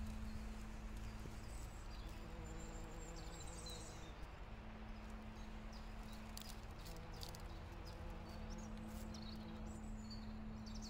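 Faint outdoor woodland ambience: small birds chirping now and then over a steady low hum, with a few light clicks.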